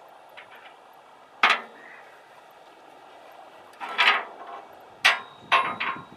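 Irregular sharp clanks and knocks of ratchet-rake hardware being worked onto a tractor loader bucket: one about a second and a half in, then a cluster of several from about four seconds on, some briefly ringing.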